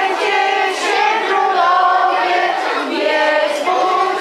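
A group of people singing a Christmas carol together in a large room, holding each note in a slow melody.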